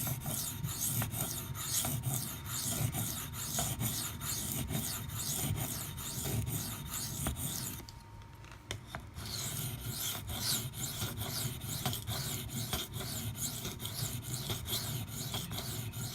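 Maxamet steel knife blade being stroked back and forth on a coarse 400-grit CBN sharpening stone, a rhythmic scraping of about three strokes a second with a brief pause about eight seconds in. The blade is being ground down to remove chips from the edge.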